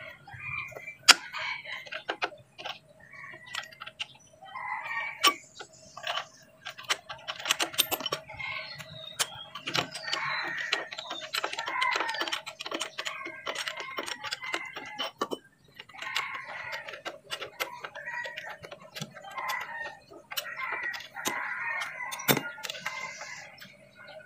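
Chickens clucking and a rooster crowing, mixed with many sharp metallic clicks and clinks from hand tools working on the bolts of a truck's axle.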